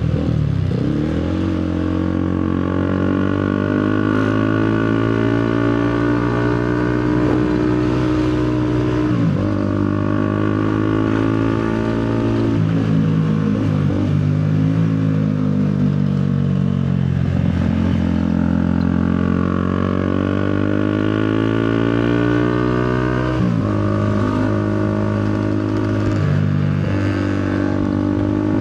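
Motorcycle engine running under way, its pitch sliding up and down with the throttle and jumping at a few gear changes.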